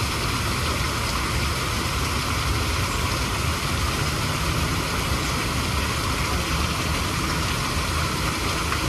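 Steady rushing water of a small spillway: an even, unbroken noise with a heavy low rumble.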